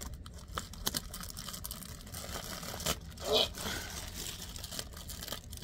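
A plastic poly mailer being cut open with scissors, crinkling and scraping, with scattered small snips and clicks and one louder rip about three and a half seconds in.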